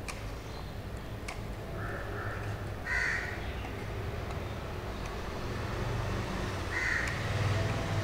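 A crow cawing three times, about two, three and seven seconds in, over a low steady background hum.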